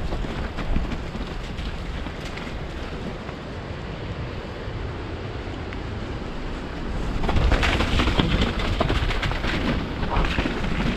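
Mountain bike descending a wet, rough downhill trail: wind rumbling on the action camera's microphone over the tyres rolling, with the bike rattling and knocking on roots and rocks. It gets louder and busier about seven seconds in.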